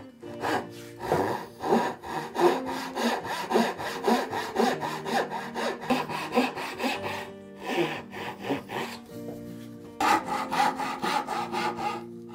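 A brass-backed backsaw sawing by hand through a pale wooden board in quick, even strokes of about three a second. The sawing stops briefly about seven seconds in and again around nine seconds, then resumes.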